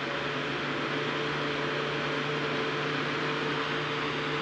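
Pak Air 14-inch exhaust fan, fitted with a 12-volt DC motor and run from a battery, spinning at full speed. It gives a steady low motor hum with a couple of even tones over the rush of air from the blades.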